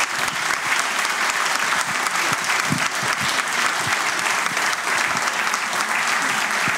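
Audience applauding at the end of a talk, a steady patter of many hands clapping.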